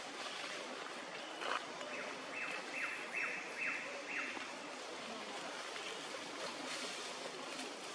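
Steady outdoor background hiss among trees where macaques sit. About two seconds in comes a run of five short, high-pitched calls, evenly spaced, each dropping in pitch at its end.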